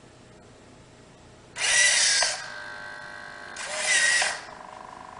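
Hobby servo motors inside a 3D-printed animatronic hand whirring in two short bursts, about 1.6 and 3.6 seconds in, as they pull the fingers' cables through a programmed movement. A fainter steady hum between the bursts is the servos holding the fingers in position.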